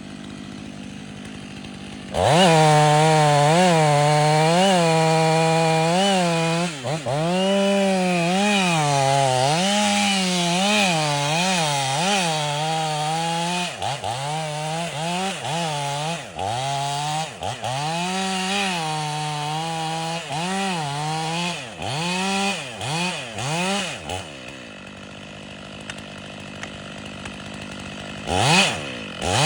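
Stihl MS 500i two-stroke chainsaw idling, then opened to full throttle about two seconds in and run hard, its pitch sagging and recovering again and again, as under load in a cut. It drops back to idle a few seconds before the end, then revs up briefly twice.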